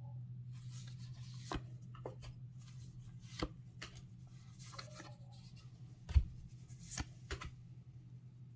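Trading cards and their packaging being handled on a table: scattered sharp taps and clicks, the loudest about six seconds in, over a steady low hum.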